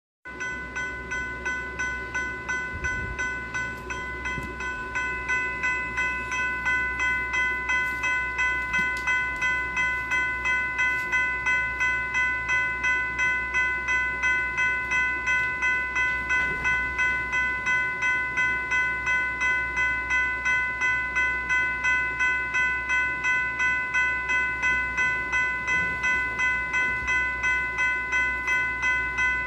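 General Signals Type 3 electronic bell (E-Bell) sounding: a bright bell-like chord of clear tones, struck a little over twice a second, each stroke sharp at the start and fading quickly. The strokes are quieter and uneven for the first few seconds, then settle into a steady, even pattern.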